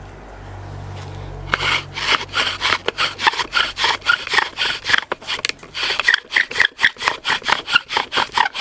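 Bow drill at work: a wooden spindle spun back and forth by a bow, rubbing in the notched hole of a wooden hearth board under a steel bearing block. Fast, even rubbing strokes at about four a second begin about a second and a half in, the drilling that builds heat for an ember.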